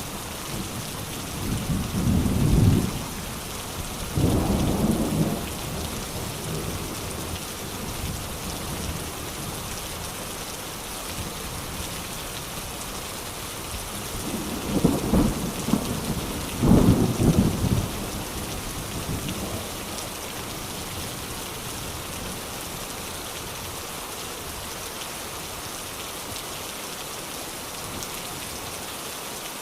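Steady rain hissing throughout, with four short, loud low rumbles of thunder: two near the start and two about halfway through.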